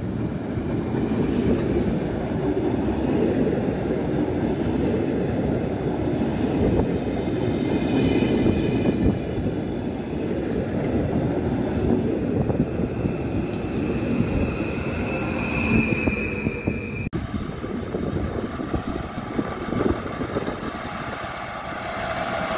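PKP Intercity ED160 (Stadler FLIRT) electric multiple unit rolling past along the platform: a loud, continuous rumble of wheels on rail, with high thin wheel squeal rising briefly around a third of the way in and again about two-thirds in. It cuts off abruptly about three-quarters through, and a steadier mechanical hum with a few held tones follows.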